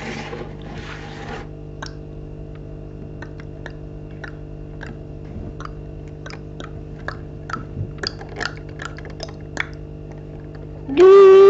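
Plastic Lego pieces and a minifigure clicking and tapping on a Lego baseplate as they are placed by hand: a scattering of small, irregular clicks after a rustle at the start. A much louder held tone cuts in near the end.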